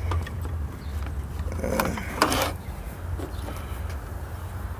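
Handling noises during work on the water pump: a few light clicks and a brief rattling scrape about two seconds in, over a steady low hum.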